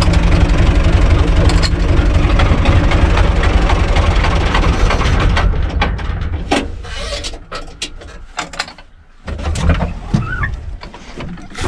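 Universal 445 DT tractor's four-cylinder diesel engine running steadily, heard from inside the cab, then shut off about halfway through. After it stops come scattered metal knocks and clunks from the cab door and its fittings.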